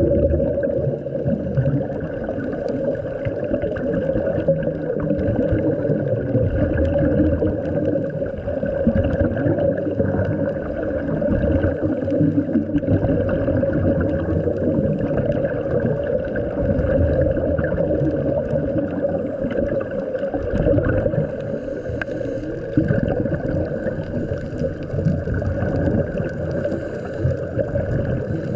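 Muffled underwater sound from scuba divers: a steady low drone with uneven gurgling and rumbling from exhaled regulator bubbles.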